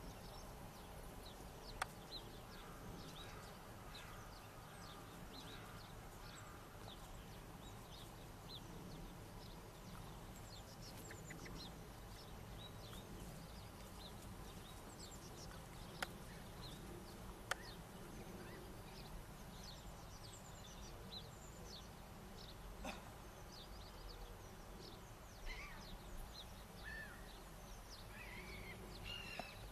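Faint birdsong from small wild birds: many short, high, downward-sliding chirps, with a few lower slurred notes near the end. Underneath is a low steady background rumble, and three sharp single clicks stand out.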